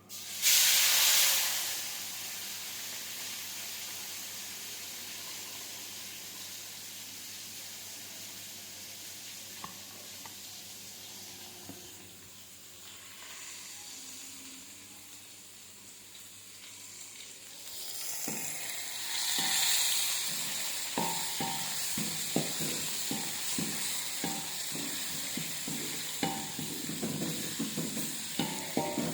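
Food dropped into hot cooking oil, a sudden loud sizzle that settles into steady frying. From about two-thirds of the way in, the sizzle swells again and a utensil knocks and scrapes against the pan several times a second as the food is stirred.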